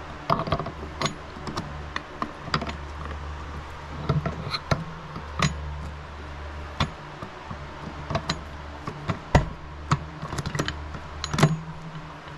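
Scattered sharp metallic clicks and clinks of tools and motorcycle engine parts being handled during reassembly, about a dozen irregular strikes, over a steady low hum.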